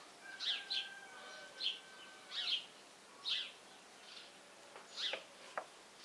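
Swallows chirping: short, high, falling chirps, about one or two a second.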